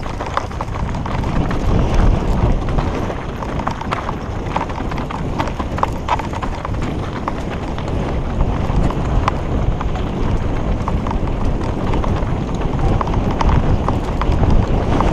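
Mountain bike clattering down a rough, rocky trail: tyres crunching over loose stones, with chain slap and rattling knocks from the bike. Continuous rough noise is broken by many sharp clicks.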